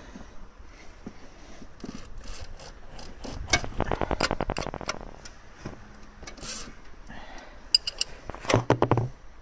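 Hand tools clicking and clattering on metal, with a run of rapid, even clicking of about ten a second lasting a second and a half near the middle and a shorter, louder run near the end.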